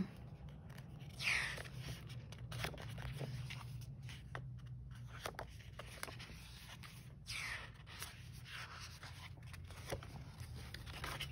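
Quiet paper handling, like sheets or pages being moved and turned: two swishing sweeps of paper, one about a second in and one about seven seconds in, with scattered light taps and clicks between them.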